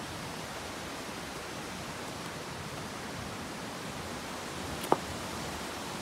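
Steady, even outdoor hiss with no distinct source, and one sharp click or knock about five seconds in.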